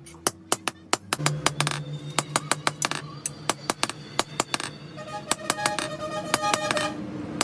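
Sickle blade being sharpened: quick, ringing metallic strokes, about four a second, over background music.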